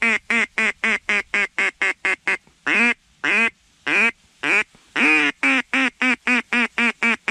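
Mouth-blown mallard duck call sounding a long run of loud hen quacks, a few drawn out and most short and quick at about four a second, blown at a passing flock of ducks to turn them toward the decoys.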